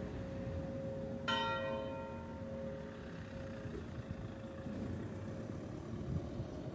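Bronze church bells, cast by the Pasqualini foundry in 1934, coming to rest at the end of a swinging peal: a single last stroke about a second in, then the bells' hum slowly fades away.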